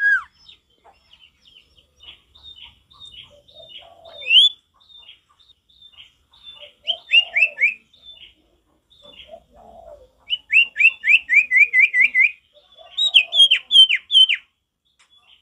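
Common iora (sirtu) singing: soft chip notes at first, then groups of quick, downward-slurred whistles. The longest is a fast run of about ten notes two-thirds of the way in, followed by a last group of four, with fainter lower chirps between the groups.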